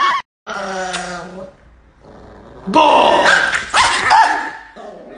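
A small dog growling, then barking more loudly past halfway.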